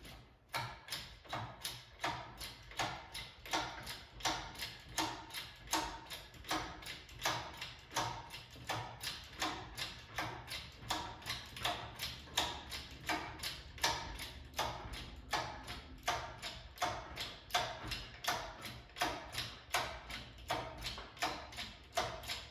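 Steady, evenly spaced clicking, about three sharp clicks a second.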